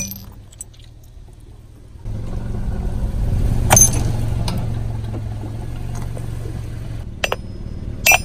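A car's engine running at a low, steady idle, starting about two seconds in, with the tyre on crushed ceramic teacup shards and water beads; one sharp crack about four seconds in, and a sharp knock near the end.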